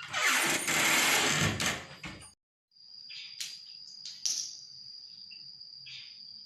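A loud burst of noise lasting about two seconds, then a brief dropout and faint room tone with a steady high whine and a few soft clicks.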